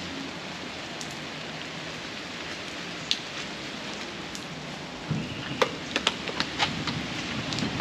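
Steady rain falling, with a run of sharp clicks and clinks about five to seven and a half seconds in.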